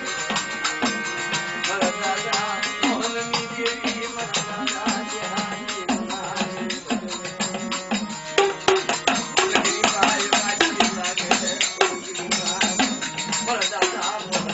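Gujarati folk music: drums and jingling hand percussion playing a steady beat over held instrument tones.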